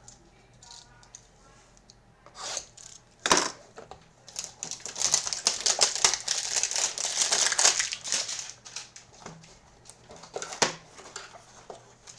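Plastic wrapping of a trading-card hanger box being torn open and crinkled for about four seconds. A sharp knock comes just before it, and scattered clicks and a tap come near the end as the cards are handled.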